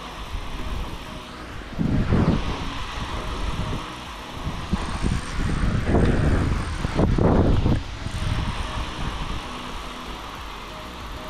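Soft background music with three loud, low rumbling bursts, about two, six and seven seconds in.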